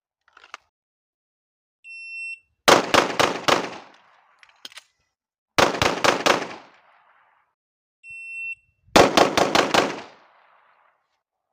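Shot-timer start beep followed by a rapid string of pistol shots from an Arex pistol, then, after a pause of about two seconds fitting an empty-gun reload, a second rapid string. A second timer beep follows, then another rapid string of about five shots.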